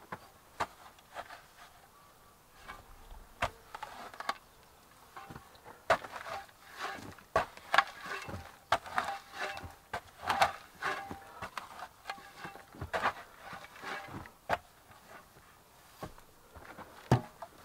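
Shovel blade scraping and chopping into the dirt floor of a pit: a string of irregular scrapes and knocks, busiest in the middle.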